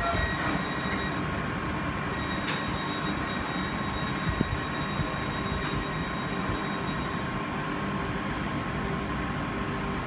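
Thameslink Class 700 electric multiple unit standing at the platform, its on-board equipment giving a steady hum with high, steady whining tones, the highest fading out about two-thirds of the way through.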